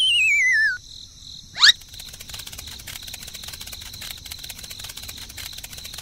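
A warbling whistle slides down in pitch for about the first second. A quick rising sweep follows, then steady, rapid cricket chirping.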